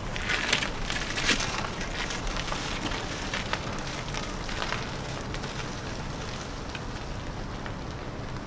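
Crunching footsteps, irregular and most distinct in the first few seconds, over a steady hiss.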